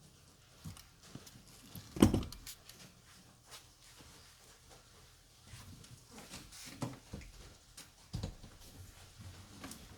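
Knocks and clicks of tools and parts being handled: one sharp, loud knock about two seconds in, then scattered lighter knocks and clicks.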